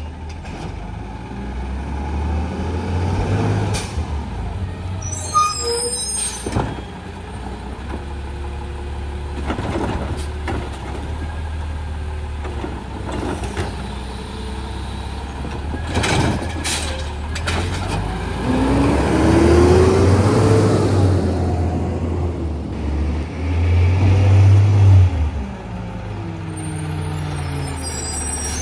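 Automated side-loader garbage truck working a cart: its diesel engine runs and revs up several times, with a rising whine at about two-thirds of the way through. Several sharp knocks come from the cart and lift arm, and air brakes hiss.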